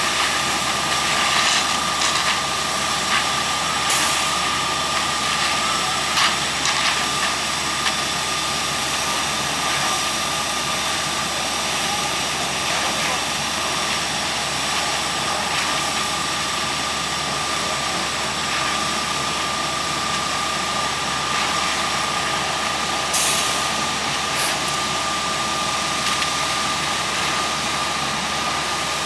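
Heavy diesel equipment at a concrete pour running steadily: an even engine noise with a constant whine over it, unchanging throughout.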